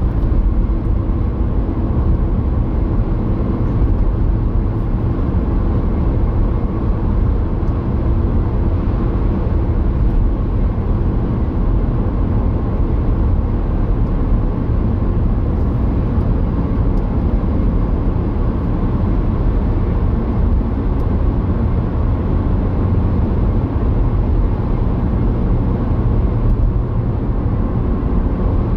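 Steady road and engine noise inside a car cruising at about 50 mph: a deep, even rumble of tyres and engine with a faint steady hum underneath.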